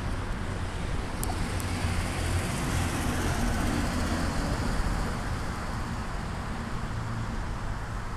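Steady noise of expressway traffic running alongside, with a low rumble, mixed with wind on the microphone of a moving bike.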